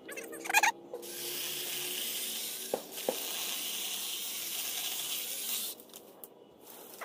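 Craftsman 20V cordless electric pole saw running and cutting through a branch: a steady high-pitched hiss that starts about a second in and cuts off suddenly near six seconds, with two short knocks about halfway through.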